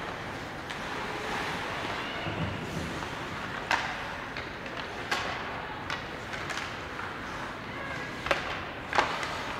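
Ice hockey sticks and puck clacking in play, several sharp knocks spread over a few seconds, over the steady murmur of the rink.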